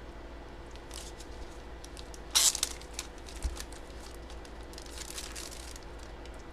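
Packaging being handled by hand: light clicks and crinkling, with one short loud crinkle about two and a half seconds in.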